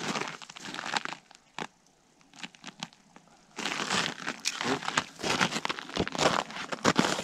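Boots crunching and crackling on crusty snow, in irregular bursts, with a short lull about two seconds in before denser crunching resumes.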